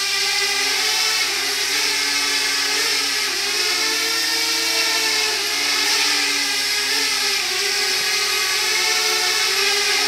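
Parrot Bebop quadcopter's propellers whirring steadily as it hovers close by, the pitch wavering up and down as the motors adjust its position.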